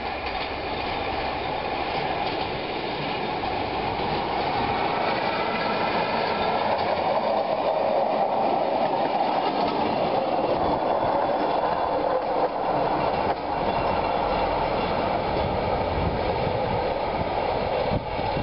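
Small rail inspection car (track motor car) running along the rails and passing close by, its engine and steel wheels clattering on the track; the noise builds over the first several seconds as it approaches and then stays loud.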